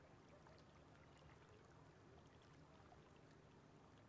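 Near silence, with only a faint low hum and hiss.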